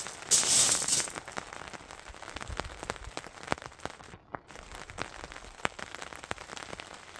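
Steady rain, with many close raindrops ticking irregularly, and a short, louder hiss near the start.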